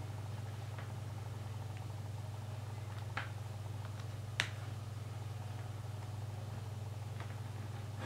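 Steady low hum with two small sharp clicks, about three and four and a half seconds in, as a micro-USB charging cable is pushed into a Samsung Galaxy S2's newly replaced charging port.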